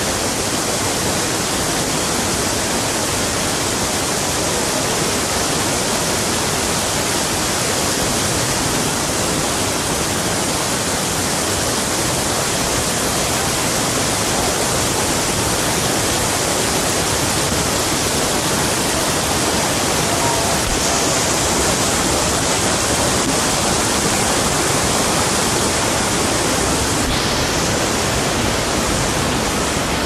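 Umbrella Waterfall's falling water: a loud, steady, even rush of water.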